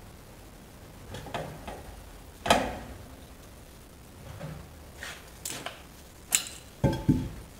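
Heavy steel brake drum being worked off a Peterbilt 359's front steer-axle hub: a series of separate sharp metal knocks and clanks, the loudest about two and a half seconds in and two close together near the end.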